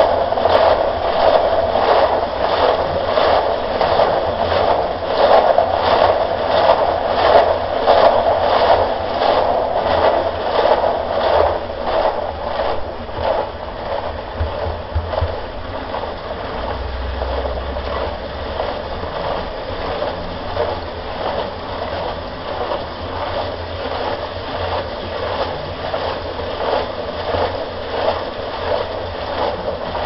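Homemade concrete mixer running, its drum turning and churning its load with an even rhythmic pulse; after about twelve seconds the sound grows steadier and a little quieter.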